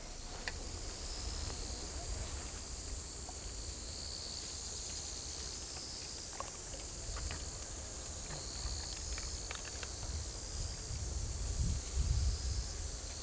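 A steady, high-pitched chorus of insects chirring, over a low rumble that grows heavier near the end, with a few faint clicks.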